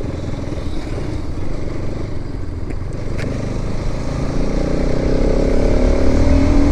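Motorcycle running on the road with a dense low rumble. Its engine note rises steadily over the last couple of seconds as it accelerates.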